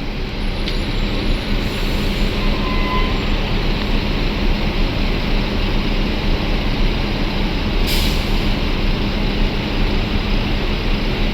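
Intercity buses passing close by, a loud steady rush of engine and tyre noise over a constant low hum. A short, sharp hiss of air cuts through about eight seconds in.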